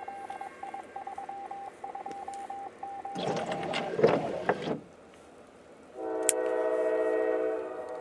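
A locomotive air horn sounding from about six seconds in, a steady chord of several notes that drops in level after about a second and a half but keeps going. Before it, rapid high electronic beeping for about three seconds, then a loud rustling clatter lasting about a second and a half.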